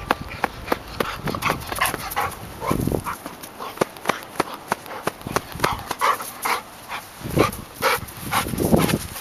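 Golden retriever close by, panting and making short whimpering sounds, with many crisp clicks and crunches throughout.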